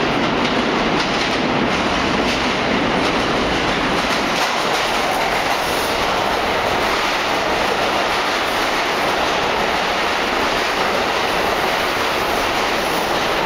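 R46 subway train entering an underground station and rolling along the platform: a steady, loud rumble of steel wheels on rail, with repeated clicks of wheels over rail joints.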